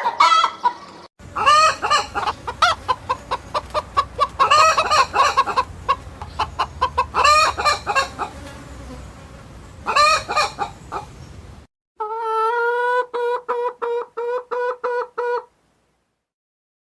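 Chickens clucking in a steady patter, with loud pitched calls every two to three seconds. Near the end comes a separate run of about ten short, even-pitched calls, after which the sound stops.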